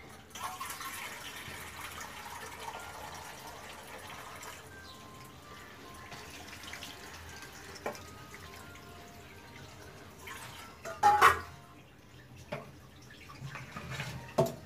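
Watery tomato-and-spice masala hissing and bubbling in a hot pan, strongest for the first few seconds and then settling to a softer simmer. Metal knocks from utensils or a pan lid come now and then, the loudest clatter about eleven seconds in.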